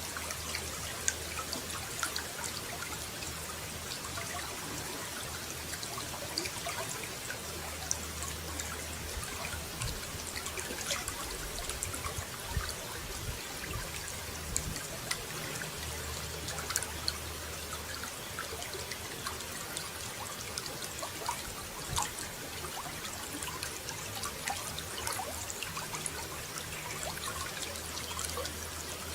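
Running water trickling and splashing steadily, with many small droplet splashes throughout.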